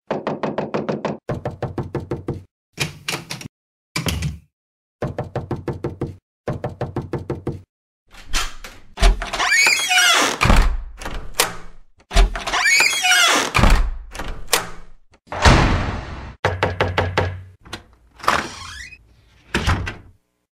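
Knocking on a wooden door: several quick rounds of rapid knuckle knocks, about eight a second, with short pauses between them. Then a door is opened and shut, with clattering, squeaks and a heavy thud, followed by a few more rounds of knocks.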